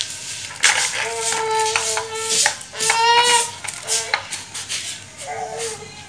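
Original Honda Cub electric disc horn sounding in a few short honks of one steady pitch, the first a little over a second long, with crackling clicks between them.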